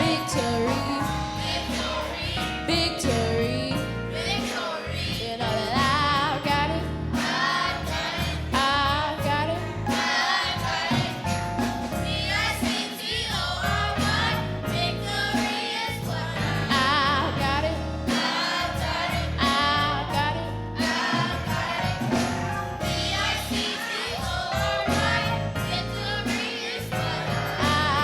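Gospel choir singing with band accompaniment, with a steady bass and percussion.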